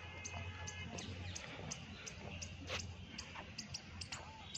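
Faint footsteps, a light click about two or three times a second, over a quiet outdoor background with a low hum.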